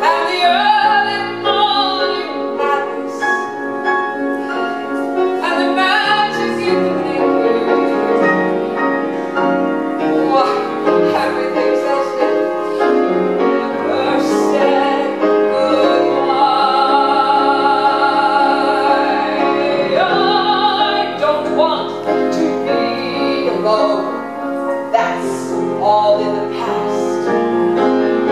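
A woman singing a musical-theatre ballad live, with a wide vibrato and a long held note about halfway through, over piano accompaniment.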